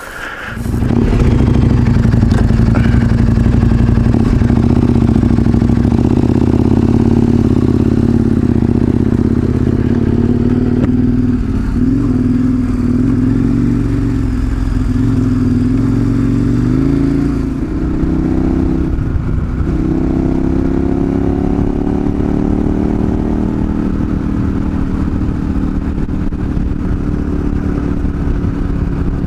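Adventure motorcycle engine running under way, loud, starting to pull about half a second in. Its note rises and falls with throttle and gear changes, dipping briefly about two-thirds of the way through and then climbing again.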